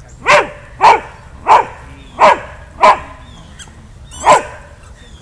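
A boxer barking six single, loud barks, five in steady succession and then one more after a pause, demanding the squeaky ball.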